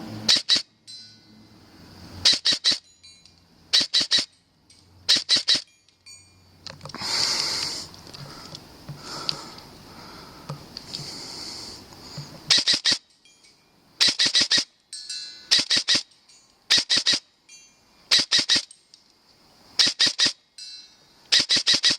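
Airsoft gun firing in quick groups of two or three sharp shots, with pauses of a second or so between groups. About a third of the way in, a few seconds of rustling handling noise replace the shots.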